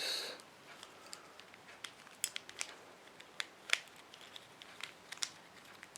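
Plastic 3x3 Rubik's cube being handled as a corner piece is pried out: scattered small, sharp clicks and clacks of plastic pieces.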